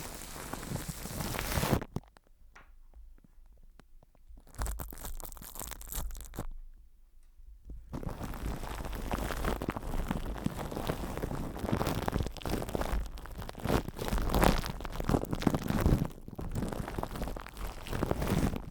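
Close-miked crinkling and crackling handling sounds, made up of many small clicks. They drop to near silence twice in the first several seconds, then run on densely.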